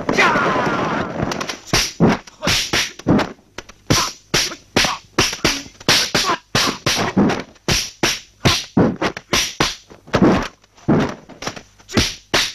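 Rapid run of dubbed kung fu punch and block sound effects: sharp whacks and thuds at about three a second. The first second and a half is a rushing sound instead.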